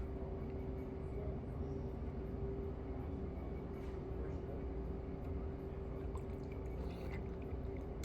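Restaurant background hum with a steady low tone, with a few faint clicks and clinks about seven seconds in, typical of utensils on a bowl.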